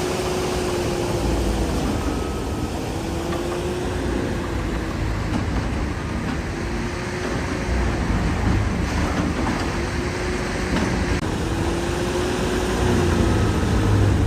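Hydraulic excavator's diesel engine running at work, its pitch swelling up and falling back every few seconds over a steady mechanical din.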